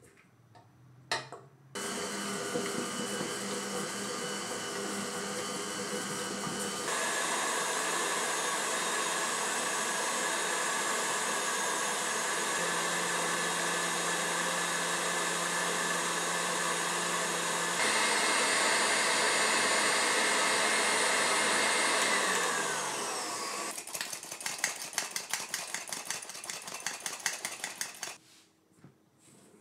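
Stand mixer motor running as it creams butter and sugar with its beater. It steps up in speed twice, then winds down with a falling pitch and stops. A few seconds of quick rhythmic rattling from a flour sifter follow near the end.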